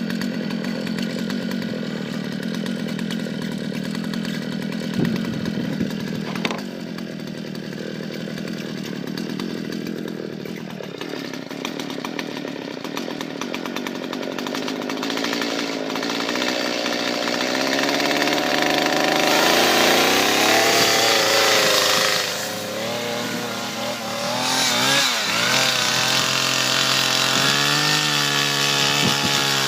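Chainsaw running and cutting into dead ash wood, louder with a hiss of cutting about two-thirds of the way through, its engine pitch shifting and wavering near the end.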